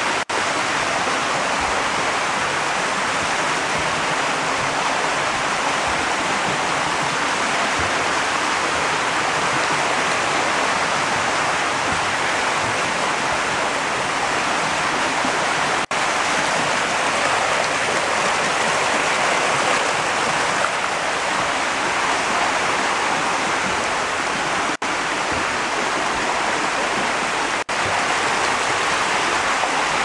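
Steady rushing and splashing of water churning in concrete koi holding tanks, a constant even noise with a few split-second gaps.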